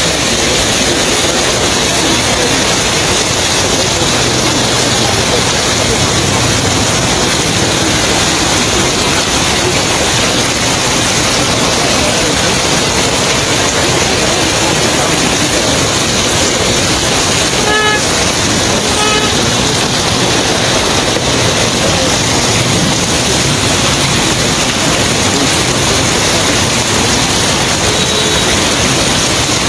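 Heavy rain pouring steadily onto a flooded street, with a vehicle horn giving a short toot about two-thirds of the way through and another a second later.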